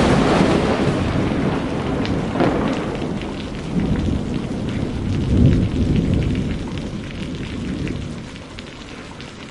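Rumbling thunder with steady rain, swelling a few times and then fading away.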